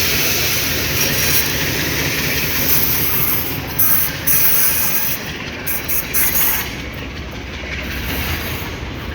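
Two Sri Lanka Railways diesel locomotives, M10A 940 and M4 744, running along the line: steady rumble and running noise that grows quieter in the second half.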